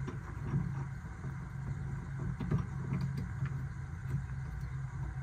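Steady low mechanical hum, with a few faint ticks from a Phillips screwdriver turning out the screw of a roof-vent crank knob.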